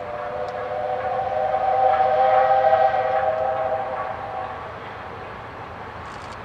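Steam locomotive whistle blowing one long blast of several tones sounding together as a chord. It swells to its loudest in the middle and fades out after about five seconds.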